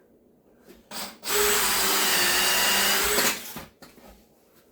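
Power drill driving a screw into a wooden cabinet base, running steadily for about two seconds and then stopping.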